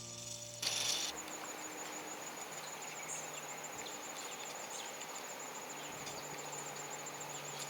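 Insects, crickets or katydids, trilling in a steady high, finely pulsing chorus over the soft hiss of the outdoors.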